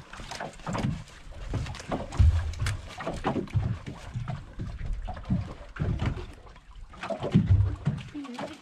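Small boat rocking on open sea: water slapping the hull and wind on the microphone make an uneven low rumble with irregular knocks and thumps.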